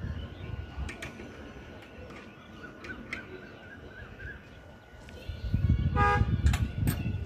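Wind buffeting the microphone outdoors, a low rumble that grows louder about five and a half seconds in, with a few faint clicks from a hand tool on the metal dish mount. About six seconds in comes a short honk, like a distant vehicle horn.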